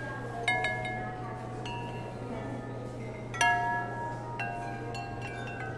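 Porcelain bowls floating on water drifting into one another, clinking and ringing like chimes. About four strikes, the loudest a little past halfway, each leaving bright ringing notes that die away slowly.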